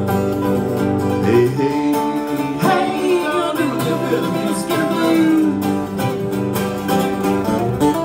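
Live mandolin and acoustic guitar playing together, with a man singing over them.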